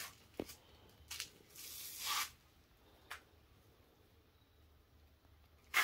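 Faint rustling of leaves, with a brief brushing sound about two seconds in and a few scattered light clicks.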